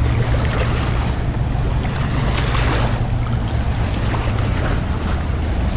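Shallow water lapping at the shore with a steady low wind rumble on the microphone.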